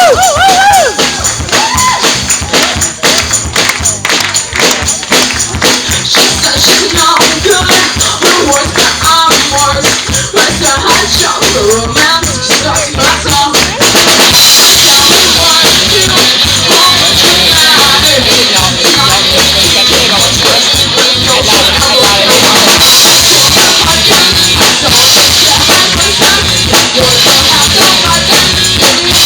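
Live band playing a pop-rock song: a steady drum beat with tambourine and singing. About halfway through the full band comes in louder.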